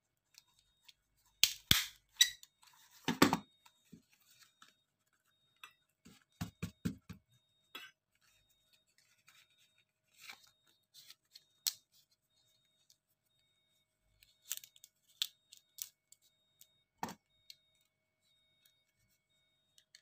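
Small handheld stapler snapping shut through banana leaf to close a pepes parcel, as a scatter of sharp clicks, with softer rustling and knocks as the leaf is folded and handled.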